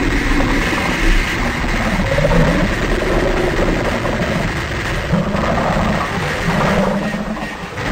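Harsh noise music: a loud, unbroken wall of noise with low rumbling tones that waver in pitch.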